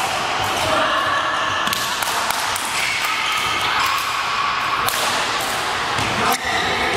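Badminton play: sharp racket hits on shuttlecocks and rubber-soled shoes squeaking on the court floor, from several games at once.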